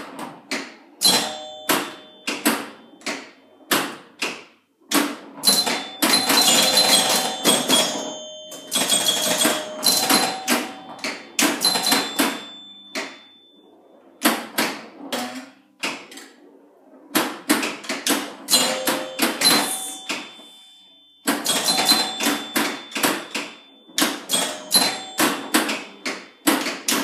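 The 1975 Gottlieb Pin Up electro-mechanical pinball machine in play: rapid clacking of flippers, bumpers and stepping score reels in busy clusters. Over them ring the scoring chimes as points are made. A few short lulls break the run, the longest about two seconds just past the middle.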